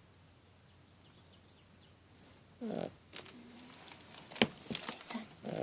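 Cat snoring in its sleep: two short snores a few seconds apart in the second half, with a few sharp clicks between them, the first of them the loudest sound.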